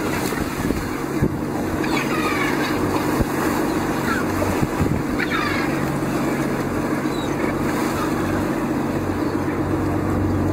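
A motorboat engine running steadily, with choppy water splashing and rushing along the hull.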